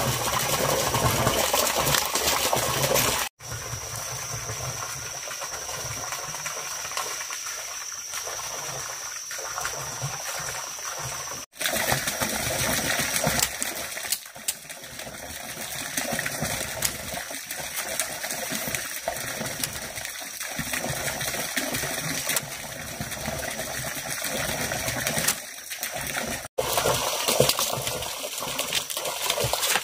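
Water running and splashing steadily, broken by three brief dropouts.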